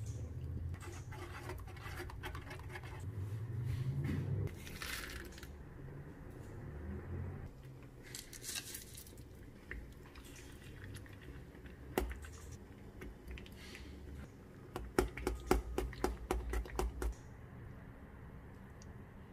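Milk poured from a plastic bottle into semolina in a pan, then a steel spoon stirring and scraping the thickening semolina halwa against the pan. Toward the end comes a quick run of spoon clinks and scrapes.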